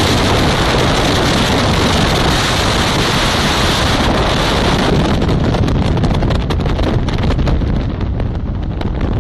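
Loud wind rushing over the microphone, with the land-speed-record project motorcycle's engine running under it as the bike passes. The hiss thins a little about five seconds in.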